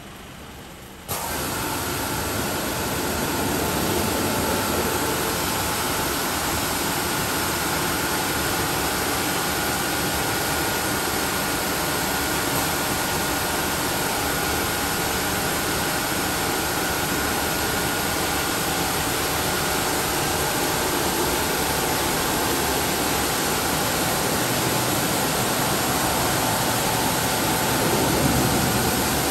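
Gantry-type automatic car wash machine spraying water over a car: a loud, steady hiss of the spray jets that switches on suddenly about a second in, with a faint steady whine from the machine running underneath.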